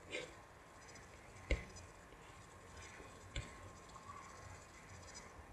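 Computer mouse clicks: a soft one, then two sharp clicks about two seconds apart, over a faint steady room hum.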